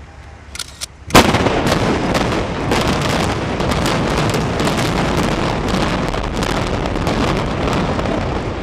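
Building implosion: a few small pops, then a loud sharp blast of the demolition charges about a second in, followed by a continuous rumble full of crackling reports as further charges fire and the building collapses.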